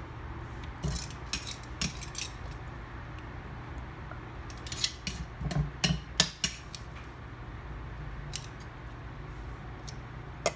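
Scattered light clicks and clinks of metal on a metal muffin tin, in a few short clusters, over a low steady hum.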